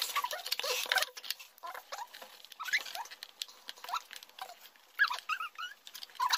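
Cardboard box and plastic packaging being handled as a GoPro Hero6 Black is worked out of its plastic mount: rustling, scraping and small squeaky clicks, with a cluster of squeaks about five seconds in.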